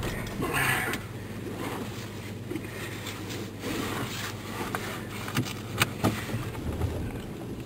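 A vehicle's engine running with a steady low hum, heard from inside the cabin, with a brief rustle just under a second in and a few sharp clicks a little past the middle.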